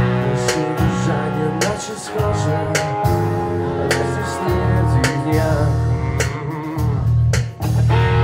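Rock band playing an instrumental passage: guitar over bass and a drum kit keeping a steady beat.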